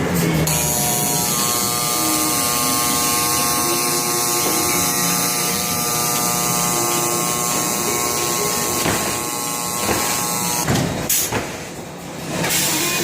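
Electric motor of a working machine, running with a steady buzzing whine, then a few sharp knocks near the end.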